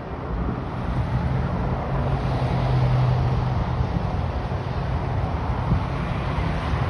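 Diesel freight locomotives running, a steady low engine drone and rumble with no horn.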